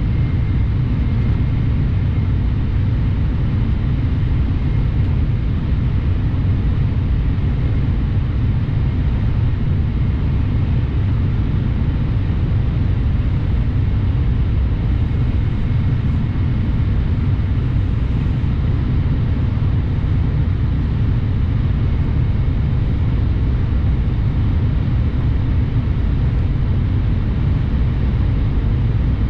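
Steady low rumble of a Shinkansen bullet train running at speed, heard from inside the passenger cabin.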